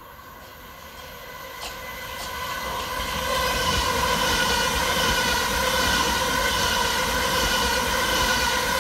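Two coupled Gatwick Express Class 387 Electrostar electric multiple units approaching and running past through the station, growing louder over the first few seconds and then holding steady. Wheels rumble on the rails under a steady whine.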